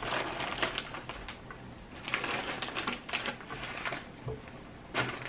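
A Walkers Max crisp packet crinkling and rustling in bursts of short sharp crackles as crisps are taken out of it by hand.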